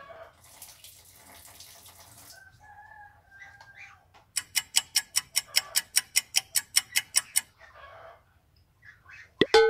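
Faint water running from a water-gallon dispenser tap into a plastic cup. Then comes a rapid, even train of sharp clicks, about five a second for three seconds, and a sudden loud hit just before the end.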